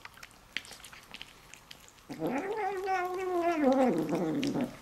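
Bengal-mix kitten giving one long, wavering yowl while eating, starting about two seconds in and dropping in pitch before it stops. Faint clicks of eating come before it.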